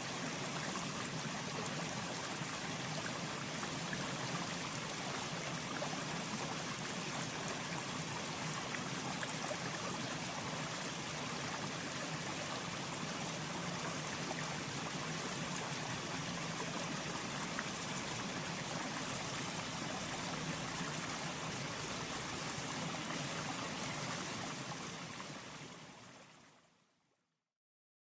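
Mountain stream flowing steadily, a continuous rush and trickle of water that fades out to silence near the end.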